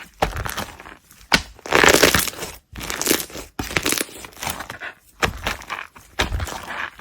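Slime being pressed and squeezed by hand, in irregular bursts of dense crackling, a new press about every second.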